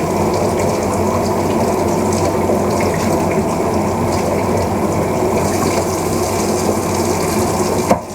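Kitchen tap running steadily as a piece of raw pork shoulder is rinsed under it, shut off just before the end.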